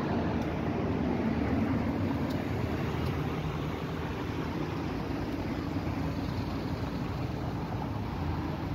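Steady road-traffic noise of cars running and waiting nearby, an even rumble with some hiss that eases off slightly after about three seconds.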